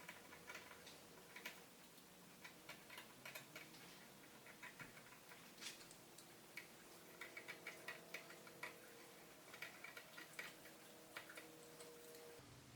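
Black wool fabric being cut along a marked line: faint, irregular small snips and clicks in quick clusters over a faint steady hum.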